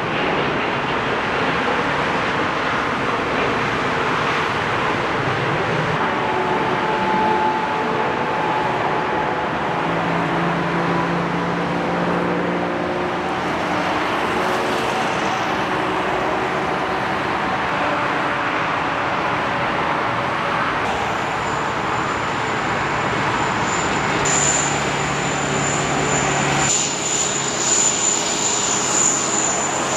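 Airbus A380 jet engines running: a steady rush of engine noise that shifts as the aircraft goes from climbing out to taxiing, with a high steady whine coming in about two-thirds of the way through.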